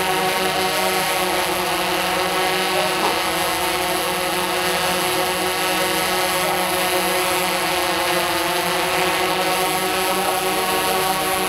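Tarot X8 octocopter's eight electric motors turning DJI 1552 propellers in flight: a steady hum made of many tones at once.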